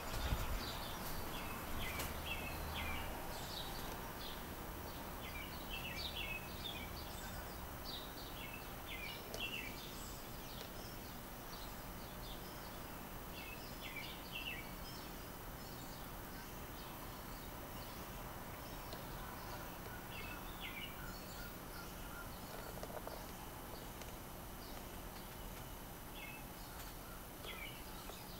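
Vintage SMC Laguna ceiling fan running with a soft steady hum, gradually getting quieter as the blades slow down. Small birds chirp now and then in the background.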